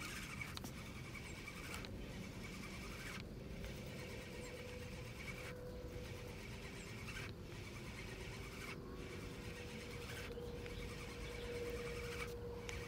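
Faint steady outdoor background noise with a low, even hum that grows slightly stronger in the second half.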